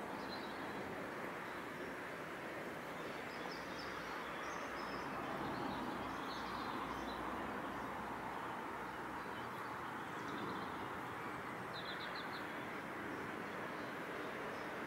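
Riverside outdoor ambience: a steady, even rushing noise with faint, scattered chirps of small songbirds, and a quick run of chirps about twelve seconds in.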